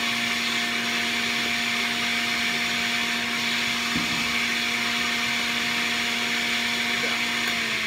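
Electric centrifugal juicer's motor running steadily with a steady hum.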